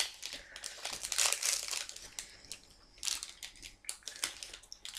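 Plastic sweet wrapper crinkling and crackling in irregular bursts as it is handled.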